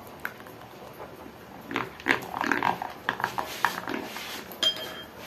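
Spoon beating thick gram-flour (besan) batter in a glass bowl: a run of wet slapping, scraping strokes from about two seconds in, then a short clink of the spoon against the glass near the end.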